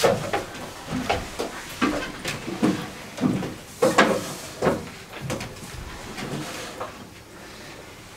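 Irregular footsteps and knocks on a hard floor, coming about once or twice a second with a slight echo, then thinning out near the end.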